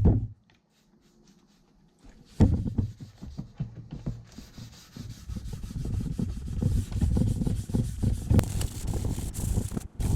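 Sandpaper being rubbed back and forth over a fibreglass (FRP) aero part in irregular strokes, starting about two seconds in after a single knock at the very start.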